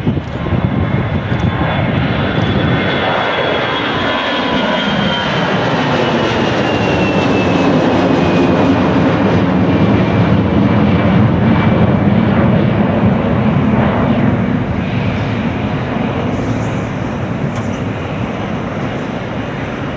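Airbus A320-214's two CFM56-5B turbofan engines at takeoff power as the airliner lifts off and climbs away: a loud, steady rumble with a high whine that slowly falls in pitch, easing off a little near the end.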